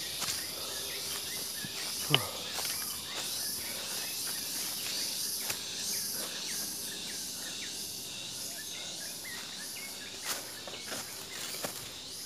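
Footsteps crunching and rustling through dry leaf litter on a forest trail, over a steady high-pitched drone of insects. There is one sharp snap about two seconds in.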